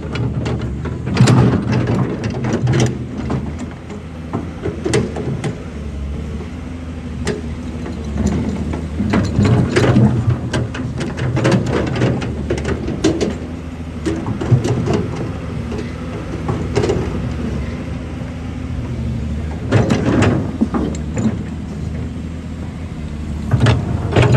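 Excavator at work: its engine runs steadily while rocks knock and scrape against the bucket in repeated irregular clunks.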